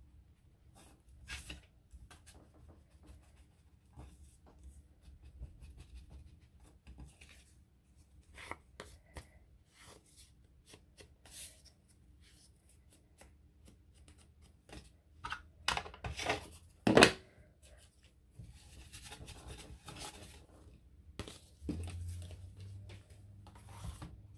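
Paper being inked along its edges and handled on a craft table: scattered rubbing, scraping and rustling. A sharp clack about two-thirds of the way through is the loudest sound.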